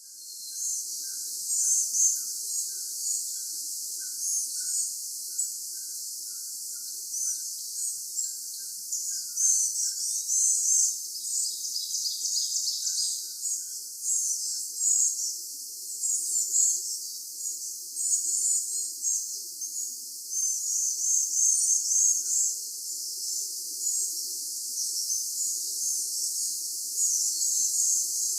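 Outdoor nature ambience: a steady high hiss with a busy stream of short high chirps and twitters over it, and a faint regular pulsing about twice a second through the first half. No thunder is heard.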